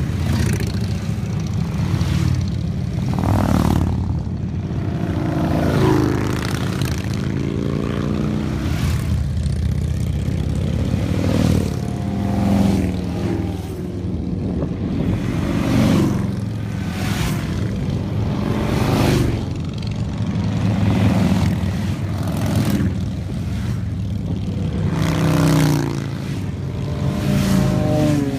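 A long line of motorcycles, mostly large touring bikes, riding past one after another with their engines rumbling. Each bike swells up and drops in pitch as it goes by, a new pass every second or two.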